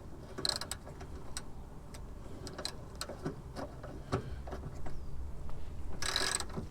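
Socket ratchet clicking and steel tools ticking while a rusted, seized bolt is being worked loose. Scattered sharp clicks come throughout, and near the end there is a short, fast rasp of ratchet clicks.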